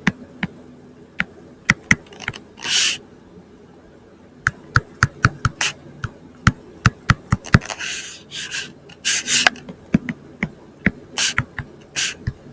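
A stylus tapping and scratching on a tablet screen during handwriting: irregular sharp clicks, sometimes several a second, with a few short scratchy strokes.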